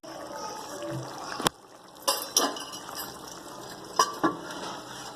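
A spoon stirring chicken in a metal karahi, scraping and knocking against the pan, with several sharp clinks, the loudest about four seconds in.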